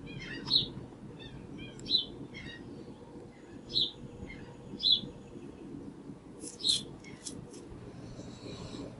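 Birds chirping: a run of short, sharp high chirps, five of them louder than the rest, over a steady low hum.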